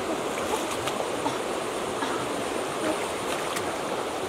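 Small stream running steadily over shallow ground, with a few faint snaps and rustles from leafy plants being picked by hand.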